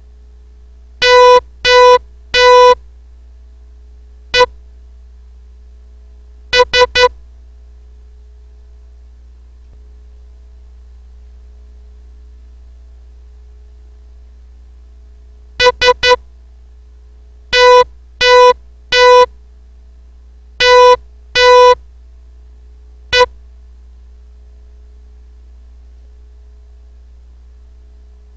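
Electronic Morse code practice tone beeped out at a slow learner's speed as a receiving test: three dahs, one dit and three quick dits (O, E, S), then after a long pause three dits, three dahs, two dahs and a dit, spelling SOME. A faint steady hum sits underneath.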